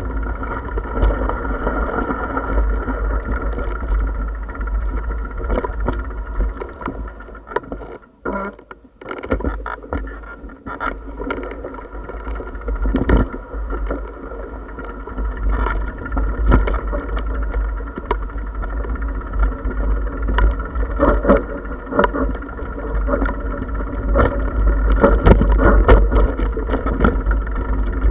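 Riding noise from a bicycle-mounted camera: wind rumbling on the microphone, with rattles and knocks from the bike jolting over a bumpy dirt track. The rumble drops away briefly about eight seconds in.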